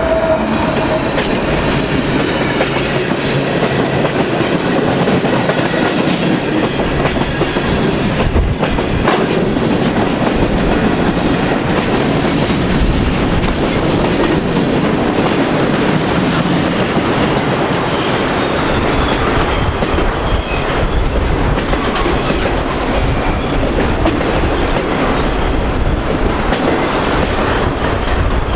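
Freight train cars rolling past close by: a steady, loud rumble of steel wheels on rail with clickety-clack over the rail joints.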